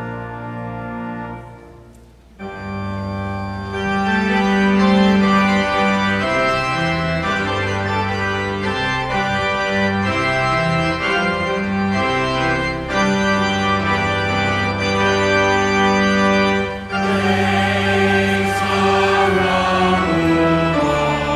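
Church organ playing slow, sustained chords. A held chord fades out about two seconds in and the organ comes back in full. A congregation and choir begin singing with it about four seconds before the end.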